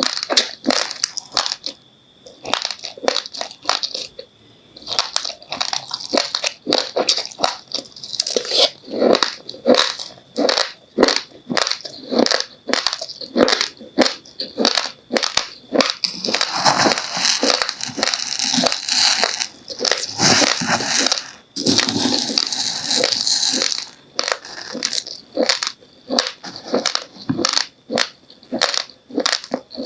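Raw, uncooked rice grains being chewed: a rapid run of sharp, crackly crunches, denser and fuller for several seconds in the middle.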